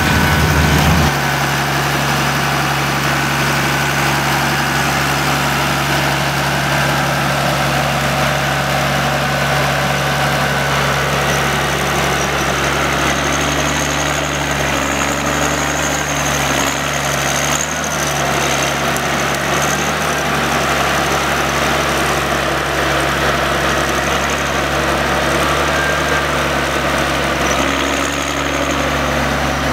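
John Deere 1110D forwarder's diesel engine running at a steady pace, with a faint high whine coming in about midway and fading out a few seconds later.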